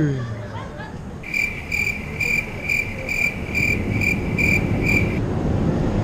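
A loud yawn trails off in the first second. Then a pedestrian crossing signal beeps electronically about twice a second, nine short high beeps at one pitch, over traffic noise, stopping about a second before the end.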